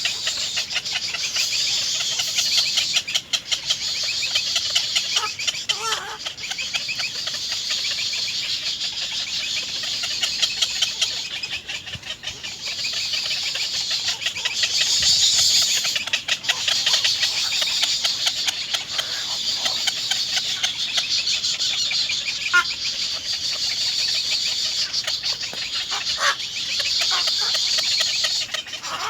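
Nestling birds calling nonstop in a fast, high-pitched cheeping chatter.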